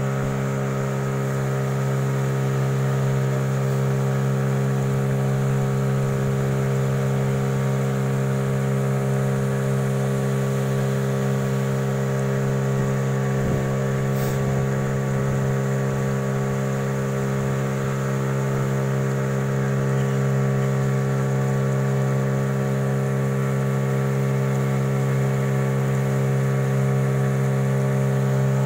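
Outboard motor of a small river taxi boat running steadily at cruising speed, a constant drone that does not change in pitch, with water rushing along the hull.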